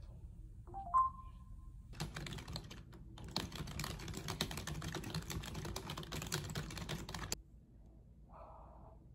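A short electronic beep about a second in, then fast typing on a computer keyboard: a rapid clatter of keystrokes that stops abruptly about seven seconds in.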